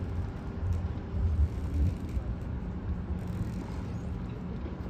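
Low, steady engine rumble with a constant hum, and heavier low thumps about one to two seconds in.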